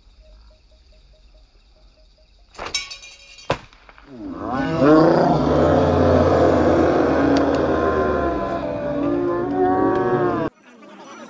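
A sharp knock, then a smaller click a moment later; then from about four seconds in a crowd of men shouts and cheers loudly in many overlapping rising and falling voices, cut off suddenly near the end.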